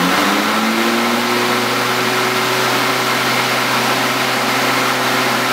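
Kobalt KM210 corded electric lawn mower's brushed motor spinning up to speed in the first moment, then running steadily at full speed with a whirring hum and an airy hiss. It runs well on its newly fitted 50-amp bridge rectifier and heat sink.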